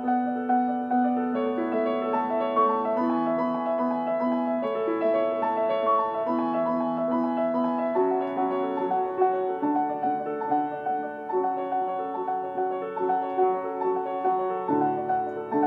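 Background piano music: a calm melody of sustained notes changing step by step.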